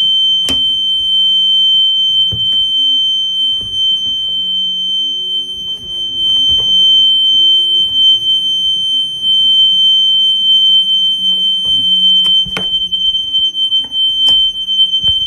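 Hotel room smoke alarm sounding continuously: one loud, steady, high-pitched tone without pauses, set off by smoke in the room. A few short clicks and knocks come through underneath.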